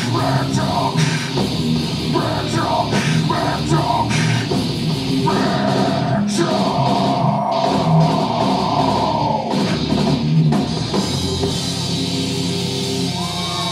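Heavy metal band playing live, with distorted electric guitars and a drum kit. A rhythmic chugging riff gives way about five seconds in to a long held note, and near the end the music thins out to ringing guitar notes.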